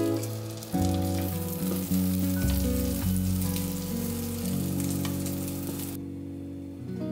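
Egg omelette sizzling in oil in a nonstick frying pan as it is rolled up with wooden chopsticks and a spatula, under background music. The sizzling cuts off about six seconds in.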